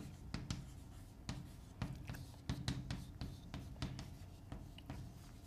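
Chalk writing on a blackboard: a quiet run of short taps and scratches as letters are written.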